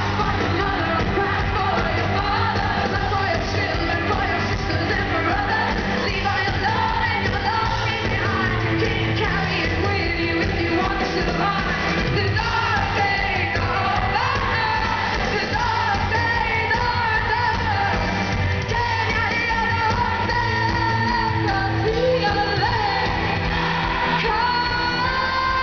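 Live pop-rock band with a woman singing lead, heard from within the audience in a large venue.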